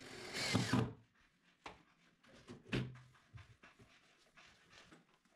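Cordless drill driving a screw into the cabinet floor for about a second, its motor pitch falling as it stops. A few scattered knocks and clicks of handling follow.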